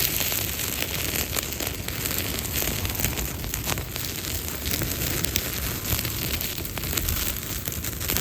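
Campfire of damp forest wood burning, with frequent small crackles and pops over a steady hiss.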